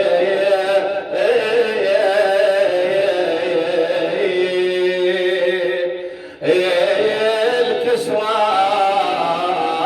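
A man chanting a Shia lament (na'i) in long, drawn-out melodic lines, holding notes. The voice breaks off briefly about six seconds in and comes back in with a rising slide.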